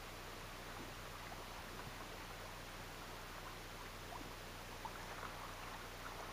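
Faint, steady noise of strong wind over choppy sea water, with a few faint ticks.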